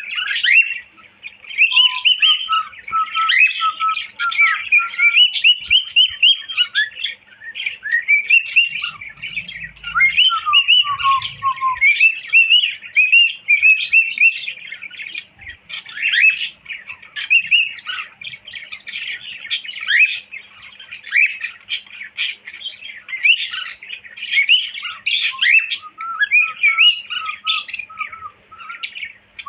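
Cockatiel chirping and whistling without pause: rapid high chirps and short rising and falling whistles, with runs of lower whistled notes early on, around ten seconds in, and near the end.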